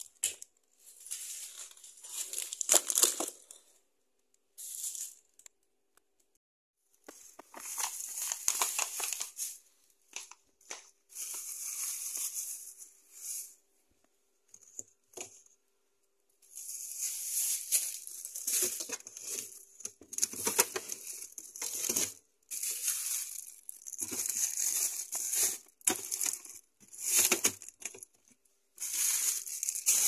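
Plastic bags crinkling and rustling in irregular bursts as wrapped groceries are handled and packed into a refrigerator, with short pauses between.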